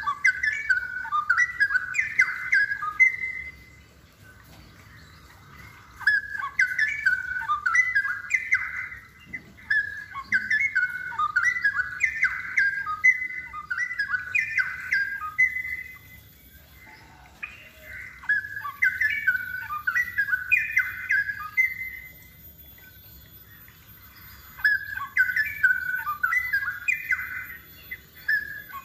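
Straw-headed bulbul (cucak rowo) singing loud, rich bubbling phrases in about six bursts of two to four seconds each, with short pauses between them.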